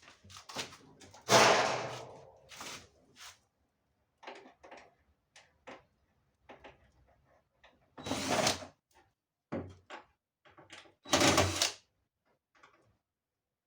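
Handling knocks while working on a tumble dryer: scattered light clicks and taps with three louder clunks, the loudest about a second in with a short ring-out, the others near the middle and toward the end.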